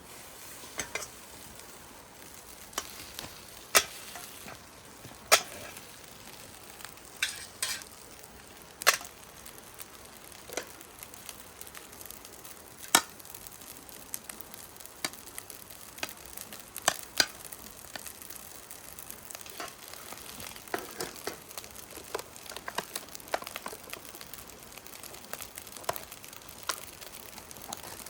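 Food sizzling steadily in a frying pan over a wood-burning camp stove, with scattered sharp clicks and knocks every few seconds.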